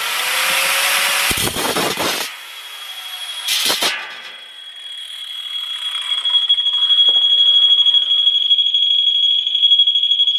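Angle grinder cutting an aluminium sheet held in a vise, for about two seconds, then again briefly about three and a half seconds in. After that a steady high-pitched tone sets in and grows louder.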